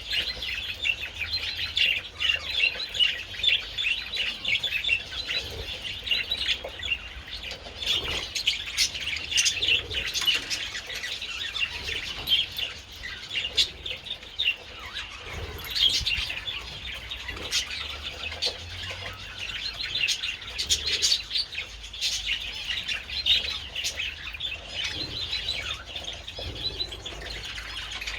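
A flock of budgerigars chattering and chirping continuously, many birds at once, with occasional wing flutters.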